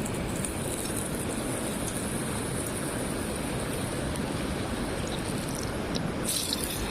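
Steady rushing of a flowing river, with a brief rustle or clatter near the end.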